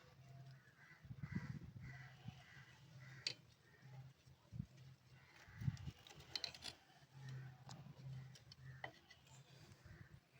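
Faint voices in the background, with a few sharp clicks.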